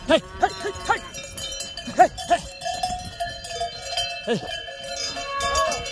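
Cowbells on walking cattle clanking irregularly, several bells ringing at once, with the hardest strikes about two seconds in and again just after four seconds.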